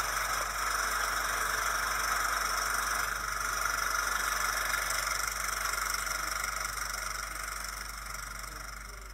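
Cine film projector running: a steady mechanical whirr with a low mains hum underneath, fading gradually over the last few seconds.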